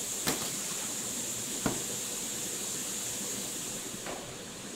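Steady hiss of factory background noise, with two light clicks, one just after the start and one about a second and a half in.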